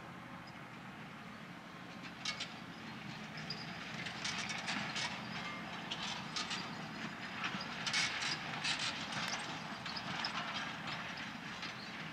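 Valtra T 214 tractor engine running with a steady low hum under ploughing, with a dense run of irregular clattering from about two seconds in, loudest around the middle.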